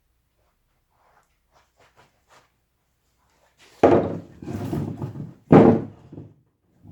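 Hand carving of a wooden piece: a few faint taps and ticks, then two sharp wooden knocks with a rough scraping cut between them.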